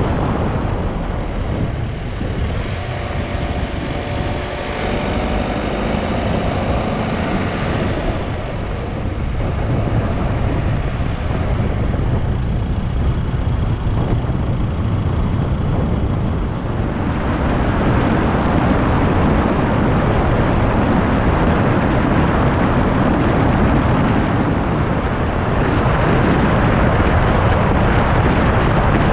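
A car driving on a wet road: steady road, tyre and engine noise, growing louder about halfway through.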